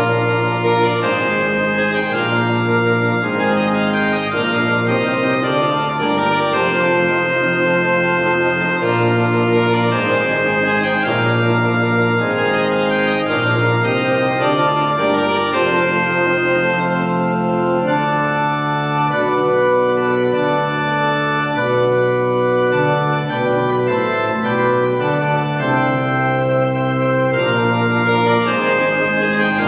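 Organ music: held chords that change every second or two, with no drums.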